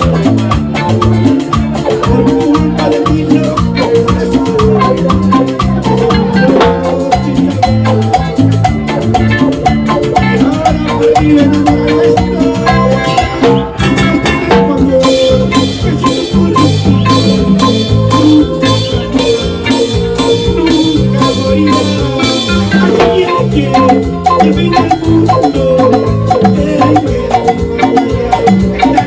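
Latin tropical dance band playing live: a steady percussion rhythm with bass and a bright melodic lead.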